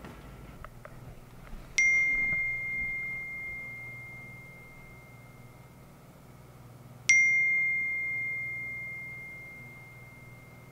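Smartphone message-notification chime sounding twice, about five seconds apart. Each is a single bright ding that rings on and slowly fades, marking an incoming text message.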